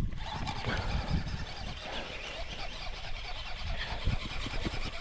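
Low wind rumble and handling noise on the microphone with scattered short knocks, while the angler fights a hooked largemouth bass.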